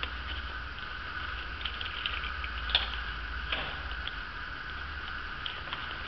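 Small clicks and light rustling of pocket tools being handled in a pouch, over a steady background hum.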